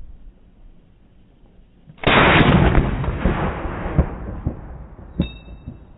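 AR-15 rifle fire: a sudden loud report about two seconds in that rumbles on and fades away over the next two to three seconds. A brief ringing ping follows just after five seconds.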